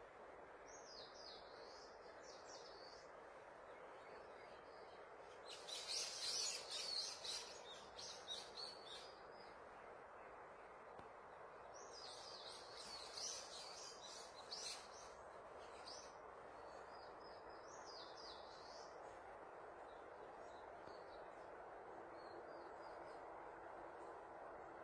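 Small songbirds singing in short high chirping phrases, loudest twice near the middle, over a steady faint background hiss.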